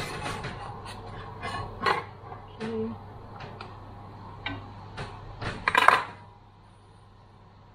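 Metal kitchen utensils clinking and scraping against a pot and a slotted metal spatula working boiled bread dough, with a series of sharp clinks and a louder clatter about six seconds in as the spatula is set down on the benchtop. A steady low hum continues underneath.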